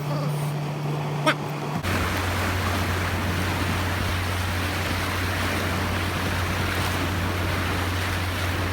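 Motorboat engine droning steadily with water rushing and wind noise while under way towing. There is a single knock a little over a second in. At about two seconds the sound shifts abruptly to a lower engine drone under louder rushing water and wind.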